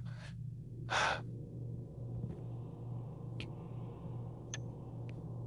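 Low, steady purring that pulses gently, with a soft breath about a second in and a few faint clicks.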